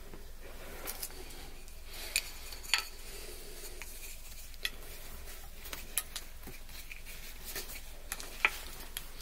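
Scattered sharp, light knocks and clicks of wooden pieces being handled as a bow-drill fire set is readied on a fireboard.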